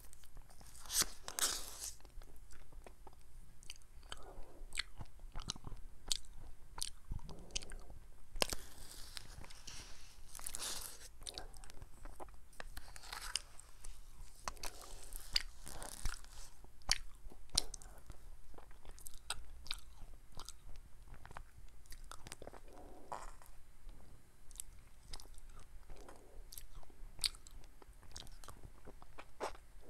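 Close-miked eating sounds: a plastic spoon scooping ice cream from a paper cup, and the wet smacks and clicks of the mouth eating it, coming irregularly.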